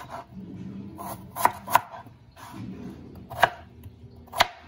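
Kitchen knife chopping a peeled russet potato into cubes on a plastic cutting board: about four sharp knocks of the blade striking the board, spaced irregularly.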